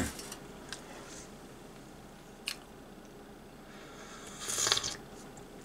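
A person slurping a sip of coffee from a mug, a short noisy slurp about four seconds in, after a couple of faint ticks.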